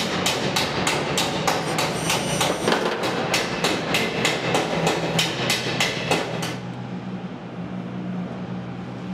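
A hammer tapping on the car's sheet-metal body, about four even blows a second, stopping about six and a half seconds in, over a steady low hum.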